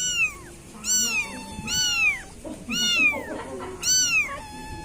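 Young kitten meowing five times, about one high-pitched meow a second, each call rising and then falling in pitch. These are the calls of a kitten left alone by its mother.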